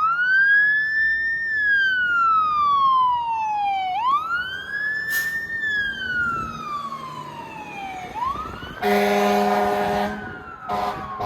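Fire engine siren wailing, rising and falling in long sweeps about every four seconds. About nine seconds in, a loud air-horn blast lasts nearly two seconds, and another starts near the end.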